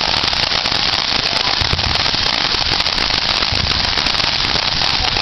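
Fireworks finale: a loud, dense, continuous crackle of many small bursts, with a couple of low thumps.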